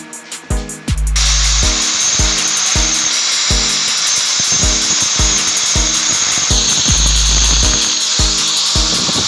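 Angle grinder fitted with a diamond core bit starts about a second in and runs steadily under load, boring a hole into a marble floor slab. Background music with a steady beat plays throughout.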